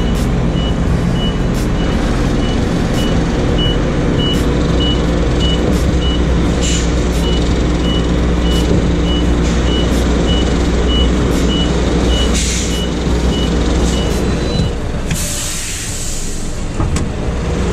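Diesel tractor unit of a semi-truck reversing, likely backing up to couple a container trailer: the engine runs steadily while its reversing beeper sounds about one and a half times a second. There are two short air hisses partway through. About 15 s in the beeping stops and a longer air-brake hiss follows.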